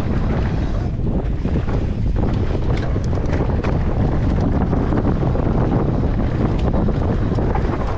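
Wind buffeting the microphone and tyres rumbling over a dirt trail as an e-mountain bike rides fast downhill, with scattered clicks and rattles from the bike over the bumps.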